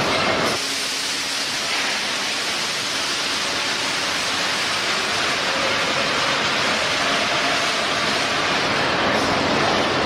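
Semiautomatic mesh welding line running, a steady rushing hiss; a lower hum underneath drops away about half a second in.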